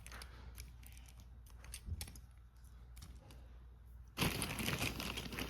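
Small toys and packaging being handled: faint clicks and knocks, then a louder rustle, like plastic being crinkled, starting about four seconds in.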